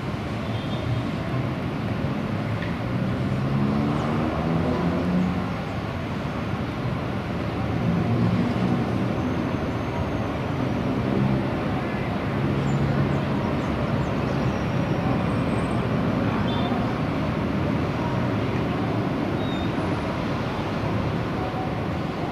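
Steady, distant roar of a Boeing 737's jet engines as the airliner rolls along the runway, with a broad rushing noise throughout.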